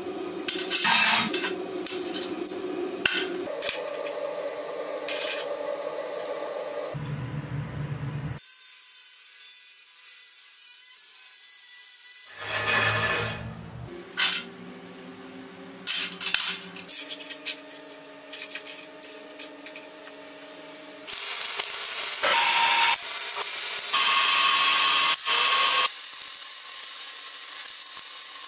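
Metalworking sounds: flat steel bar pieces and locking pliers clinking and scraping on a steel welding table. Later comes several seconds of loud, steady crackling hiss from MIG welding.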